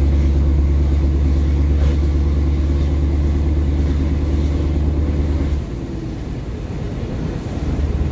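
Scania R500's V8 diesel engine running with a steady deep drone. About five and a half seconds in, the deepest part of the sound drops away for about two seconds, then comes back.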